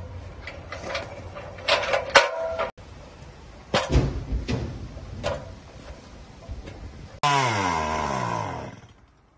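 Aluminium extension ladder clanking and knocking as it is moved and climbed. About seven seconds in, a chainsaw suddenly starts up loud and its pitch falls away as it winds down and fades out.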